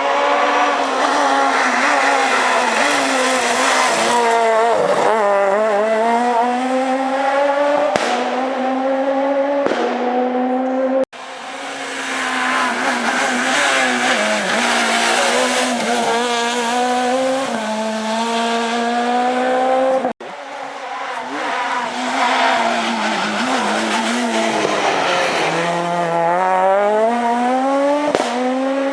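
Renault Clio S1600 rally car's naturally aspirated 1.6-litre four-cylinder engine driven hard, its revs climbing and dropping repeatedly through gear changes and lifts. The sound cuts abruptly twice, into three separate passages.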